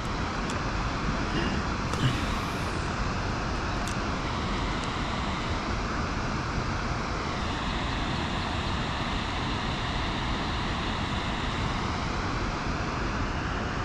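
Steady rushing noise of a kayak travelling on the water, with a faint whine that slowly wavers up and down in pitch.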